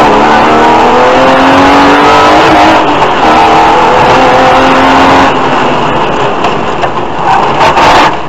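BMW E36 325i rally car's 2.5-litre straight-six engine heard from inside the cabin, pulling hard with its pitch climbing through the gears. About five seconds in the driver lifts off, and the engine runs quieter and unevenly toward the end.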